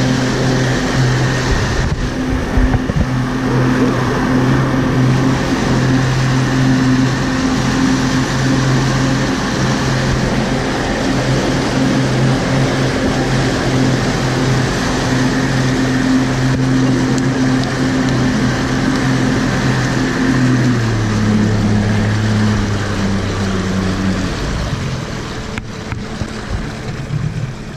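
Mercury outboard motor running steadily at speed, with the churning wake behind it. About 21 seconds in the engine note drops as it is throttled back, and a few seconds later it eases off further and gets quieter.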